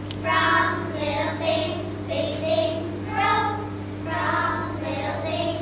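Children singing, over a steady low hum.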